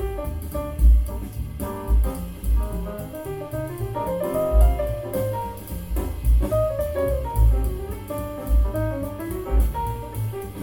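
Jazz playing through a pair of Kef R11 Meta floorstanding speakers, picked up by a microphone in the room: a drum kit with steady cymbal ticks, deep bass notes and a moving melody above.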